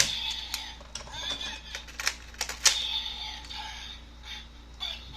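Hard plastic toy pieces being handled: a few sharp clicks and clatters, the loudest right at the start and others about two seconds in.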